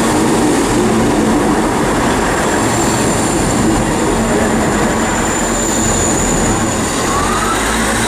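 Class 159 diesel multiple unit running into the platform: a steady, loud noise of its diesel engines and wheels on the rails, with a faint high-pitched squeal through most of it.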